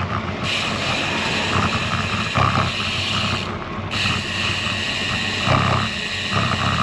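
Wind rushing over a bike-mounted camera's microphone, with tyre noise from a road bike rolling on concrete pavement. A steady high hiss cuts out briefly about three and a half seconds in, then returns.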